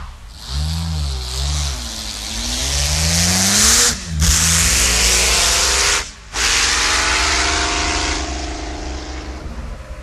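Auto Union Typ C's supercharged 6-litre V16 engine revving: a couple of quick blips, then accelerating hard with rising pitch. The sound breaks off briefly twice, each time climbing again, and fades near the end.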